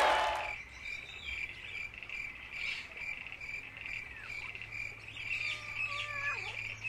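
Crickets chirping in a steady, rapidly pulsing trill, with a few short whistles, some gliding down in pitch, between about four and six and a half seconds in. The tail of crowd noise fades out in the first half second.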